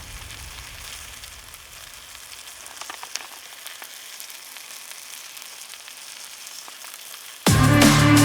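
Food frying in a pan, a steady sizzle with a few small crackles. Loud electronic music with a heavy beat cuts in near the end.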